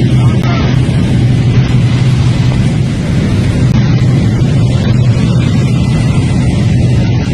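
Aircraft engine drone heard from inside the cabin: a loud, steady low hum over a constant wash of noise.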